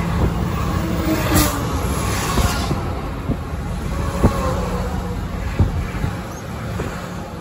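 Highway road noise from a car travelling on the interstate: a steady low drone of engine and tyres, with a brief whoosh about a second and a half in.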